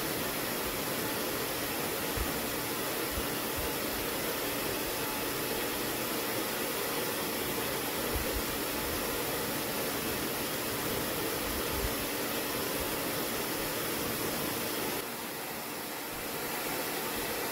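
Hair dryer blowing steadily, briefly a little quieter near the end.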